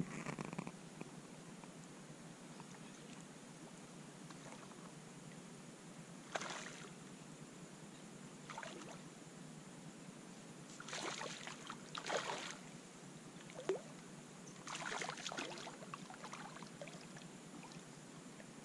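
Hooked fish splashing at the surface of a pond while being played on a rod: about six short splashes, a few seconds apart, in the second half.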